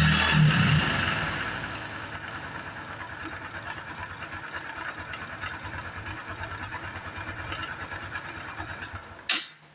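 Honda Biz 110i's small single-cylinder four-stroke engine running, louder for the first second or so and then settling to a steady idle, with the loud mechanical noise that was traced to a failed camshaft bearing. It cuts off suddenly near the end.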